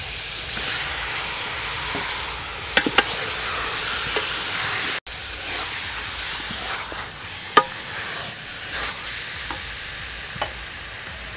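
Beef chunks sizzling in hot oil and curry paste in a pot while being stirred with a wooden spoon, with a few sharp knocks. The sizzle cuts out abruptly about five seconds in and comes back quieter.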